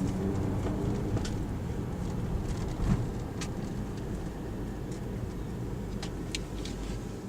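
Car driving along, with a steady low rumble of engine and road noise and a single low thump about three seconds in.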